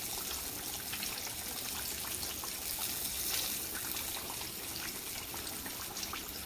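Hot oil sizzling steadily around a whole catfish deep-frying in a stainless steel pan, with many small crackling pops.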